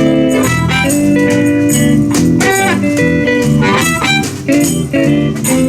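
Live electric blues band playing an instrumental passage, a guitar to the fore over bass and drums with a steady beat.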